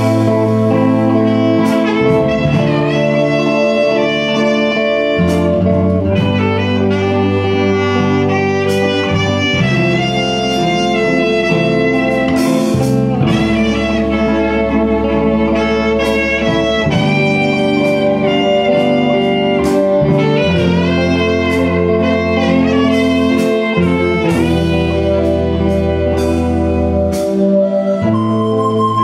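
Instrumental introduction played by a live band of electronic keyboards, electric guitar, bass and drum kit: a lead melody over held chords and a moving bass line, with steady drum strokes.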